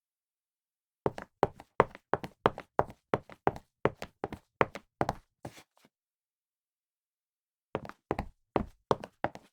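Footsteps walking quickly, about three sharp steps a second. They start about a second in, stop for about two seconds in the middle, then pick up again near the end.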